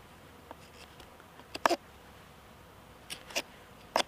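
Knife carving a green hazel stick: a handful of short, sharp cuts and scrapes of the blade through the wood, the loudest about a second and a half in.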